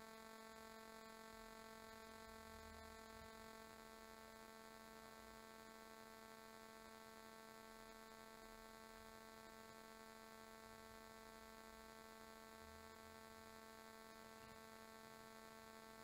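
Near silence with a faint, steady electrical hum made of a stack of even overtones.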